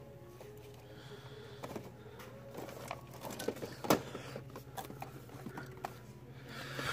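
Cardboard toy boxes (boxed vinyl figures and blind boxes) being shuffled by hand on a store shelf: scattered light taps and scrapes, with one louder knock about four seconds in. A steady low hum runs underneath.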